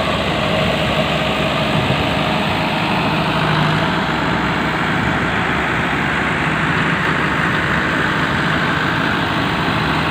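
Farm tractor diesel engines idling steadily, with no revving.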